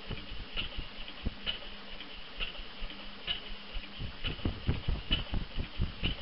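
Friend Mfg Co stationary gas engine running, with a sharp metallic click a little under once a second over low thuds from the engine. The thuds come faster and louder about four seconds in.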